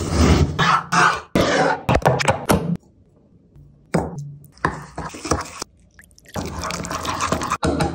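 A knife slicing crisply through a large green brinjal on a wooden board, in a quick run of cuts. After a short pause, a spoon tips spice powder into a bowl. Near the end, tamarind water is poured onto the spice mix.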